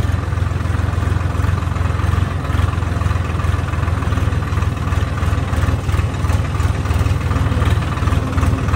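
Swaraj farm tractor's diesel engine running steadily under way, pulling a loaded trolley: a loud, even low engine note.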